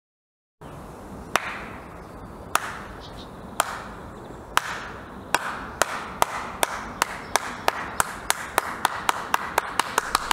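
One person's hands clapping in a slow clap, starting about a second apart and speeding up to three or four claps a second.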